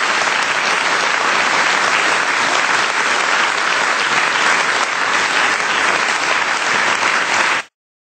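Studio audience applauding steadily, cutting off suddenly near the end.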